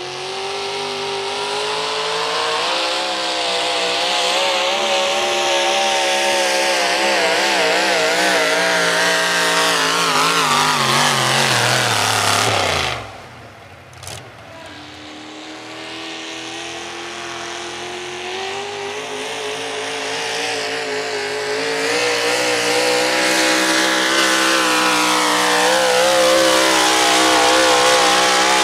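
Two modified four-wheel-drive pulling trucks run at full throttle one after the other, dragging a weight-transfer sled. The first, with a hood-mounted supercharger, wavers in pitch, winds down and cuts off about halfway. The second builds up, holds high, and starts falling in pitch near the end.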